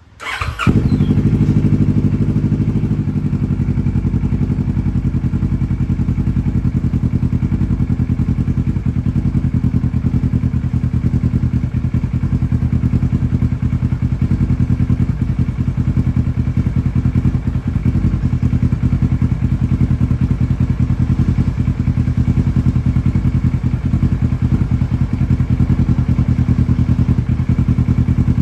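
Kawasaki 649 cc parallel-twin motorcycle engine breathing through a full Akrapovic exhaust system. It fires up about half a second in and then idles steadily with an even, pulsing exhaust note.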